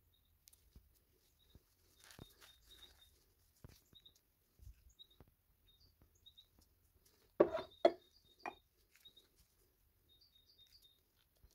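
Faint clicks and light clunks of metal engine balancer shafts being handled in gloved hands, with two louder knocks about seven and a half seconds in. Birds chirp faintly in the background throughout.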